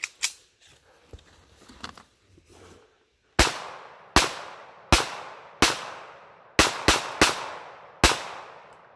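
A pistol fired eight times, starting about three seconds in, each sharp report trailing off in an echo. The shots come roughly one every three-quarters of a second, with three fired in quicker succession near the end.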